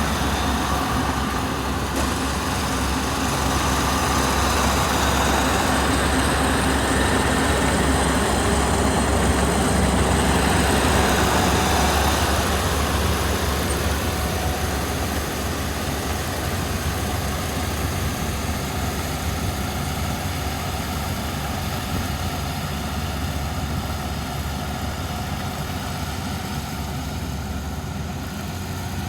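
Kubota rice combine harvester running steadily, its engine and machinery making a continuous rumble that eases slightly partway through.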